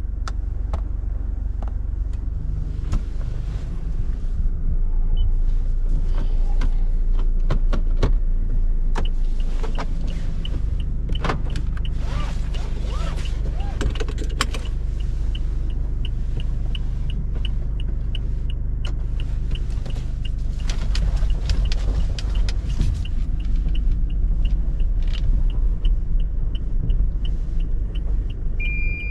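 Toyota Kijang Innova Reborn's 2.4-litre 2GD-FTV four-cylinder turbo diesel and tyre noise while driving: a steady low drone with scattered clicks and knocks. About a third of the way in, a regular light ticking starts, about two a second.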